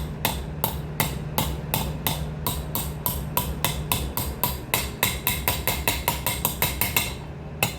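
Hammer tapping a new bearing into its housing on an Electrolux washing machine: light, even strikes about three a second that quicken near the end and stop about seven seconds in, with one last strike as the bearing seats.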